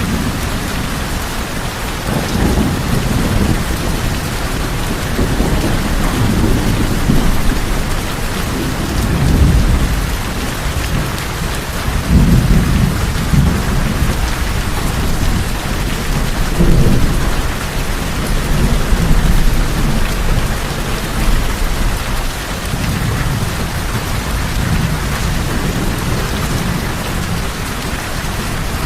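Steady heavy rain falling on a tin roof, with low thunder rumbling again and again in slow swells.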